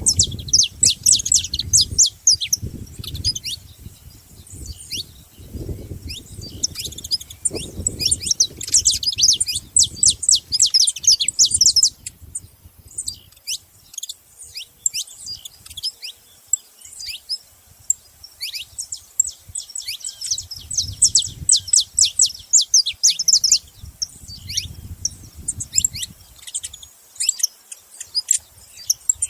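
Saffron finch chirping: dense bursts of rapid, high, downward-sliding chirps with sparser calls in between.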